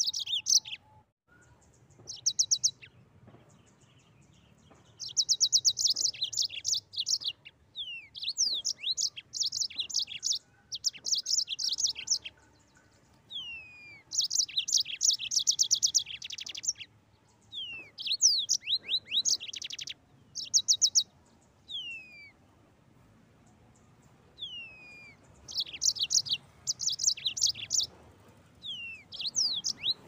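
Yellow-fronted canary (Mozambique canary) singing a long string of phrases. Each phrase mixes fast trills with sharp downward-sliding whistles, and the phrases are separated by short pauses.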